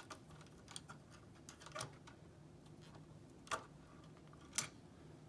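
Scattered small metallic clicks and taps, about half a dozen, from typewriter parts and a small hand tool being handled during reassembly. The two sharpest come about three and a half and four and a half seconds in.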